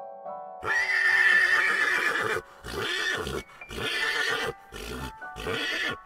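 Horse neighing: one long whinny starting under a second in, then four shorter calls. Background music plays just before it.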